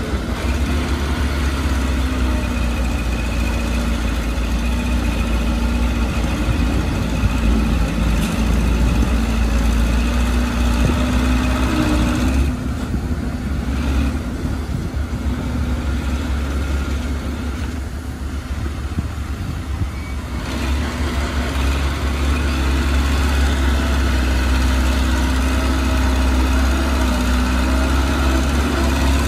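Heavy diesel engine of earthmoving machinery, a bulldozer or dump truck, running continuously with a deep steady rumble. It eases off briefly twice near the middle.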